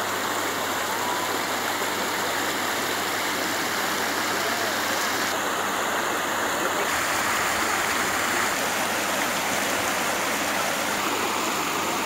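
Shallow, stony-bedded river running steadily, a constant rush of water over pebbles.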